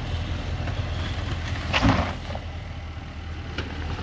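Range Rover Sport's engine running low as the SUV crawls over loose rocks, with one brief crunch of tyres or underbody on rock just under two seconds in.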